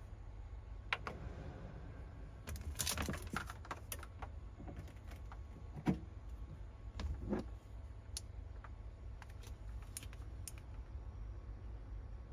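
Small plastic clicks and knocks from handling a BLUETTI AC180 portable power station: buttons pressed on its panel and a plug pushed into its AC outlet. A quick flurry of clicks comes about 2.5 seconds in, then a sharper knock about 6 seconds in, followed by scattered lighter ticks.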